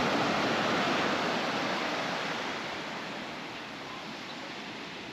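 Small ocean waves breaking and washing up a sandy beach, a rushing wash that is loudest at first and slowly fades over the next few seconds.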